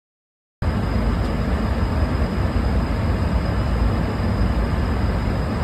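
Steady cabin noise of a jet airliner in flight, picked up by a passenger's phone at the window seat: a deep, even noise with a faint high whine, starting abruptly about half a second in.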